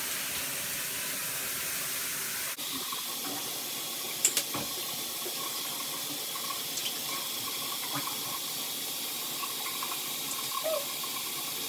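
Shower water running steadily from a handheld shower head, spraying in a tiled shower stall, with a small knock about four seconds in.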